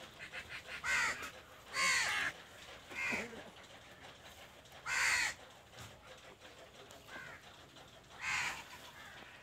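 Harsh bird calls, about six in all, spaced irregularly a second or two apart over a faint background.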